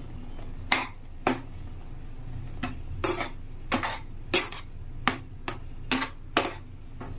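Metal spatula scraping and clinking against a steel kadhai while stirring a thick masala paste, in irregular strokes about one or two a second, over a low steady hum.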